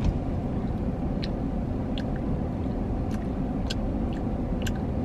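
Steady low rumble of a stationary car's engine idling, heard from inside the cabin, with a few faint small clicks now and then.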